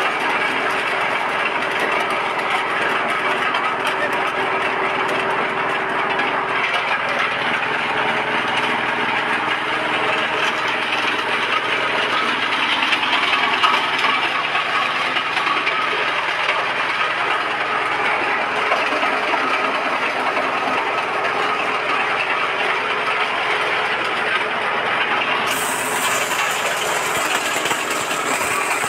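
Areca nut cracking machine running, driven by a small engine: a steady, dense clatter and crackle of nuts being cracked over the engine's even running hum. Near the end a higher hiss joins in suddenly.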